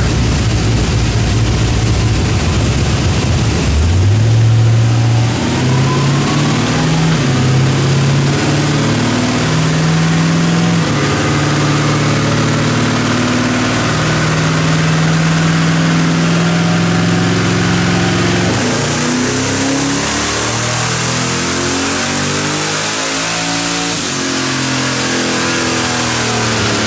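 Twin-turbocharged 5.3-litre LS V8 in a Chevy S10 making a pull under load on a chassis dyno. The engine starts low, then about four seconds in its pitch jumps and climbs steadily for some fifteen seconds before the revs fall away for the rest of the run.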